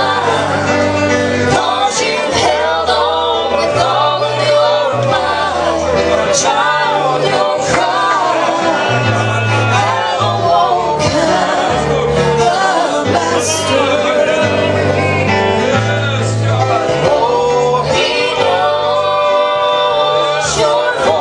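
Gospel song: singing over instrumental backing, with a bass line moving from note to note about once a second.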